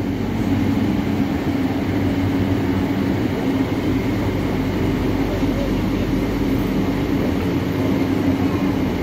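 LRT Jabodebek train running, heard from inside the passenger car: a steady rumble of the wheels on the rail with a constant low hum.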